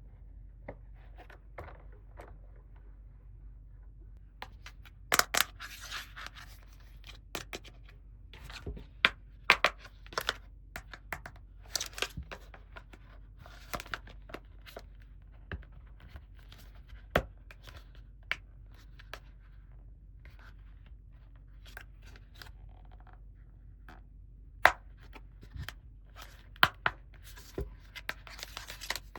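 Hands unboxing small toys: packaging tearing and rustling, with irregular sharp clicks and taps of small hard pieces. The loudest clicks come about five seconds in, around nine to ten seconds, and near the end.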